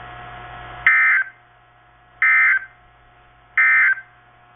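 Three short warbling bursts of EAS/SAME digital data from a NOAA Weather Radio broadcast, about a second and a third apart, played through a weather radio receiver's speaker over a faint hum: the end-of-message code that closes the flood warning.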